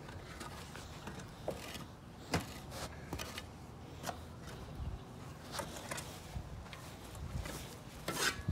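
Faint scattered clicks and rustles of footsteps on dirt and grass and of a handheld phone being moved, over a low steady rumble, with a louder rustle near the end.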